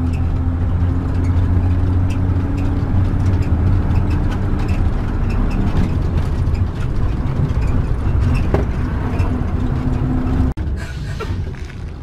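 Motorhome's engine and tyre noise heard inside the cab while driving on a paved road: a steady low drone with a faint steady hum and scattered light clicks. About ten and a half seconds in the sound drops out for an instant, then goes on a little quieter.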